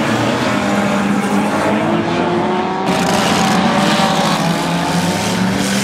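Unlimited banger racing cars' engines revving hard, their pitch rising and falling as the cars push against each other.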